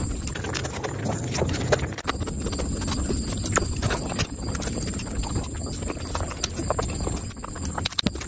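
Close-miked chewing of a mouthful of curried meat eaten by hand, with a steady run of wet smacking clicks from the lips and mouth.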